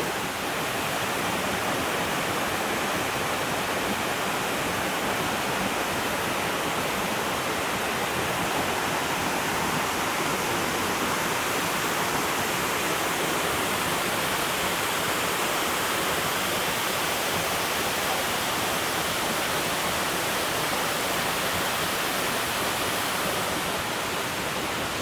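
A waterfall rushing steadily: an even, unbroken wash of falling water.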